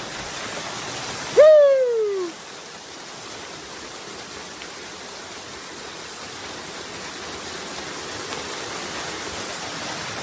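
Waterfall pouring steadily, with a man's short shout about a second and a half in that jumps up and slides down in pitch.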